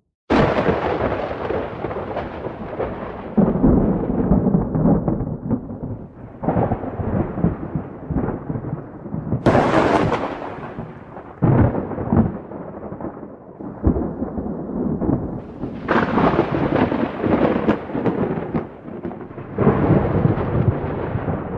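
Wind buffeting the microphone: a loud noise that swells and drops in gusts, cutting in abruptly just after the start, again about halfway through and twice more near the end.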